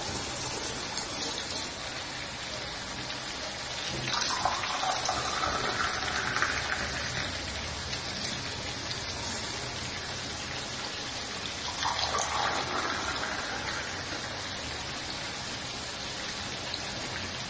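Hot black tea poured from a plastic saucepan into glass tea cups, two pours, the first about four seconds in and lasting a few seconds, the second shorter near the two-thirds mark, over a steady hiss.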